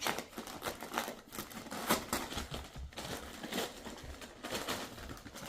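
A dog tearing into a wrapped present, the paper crinkling and ripping in irregular bursts.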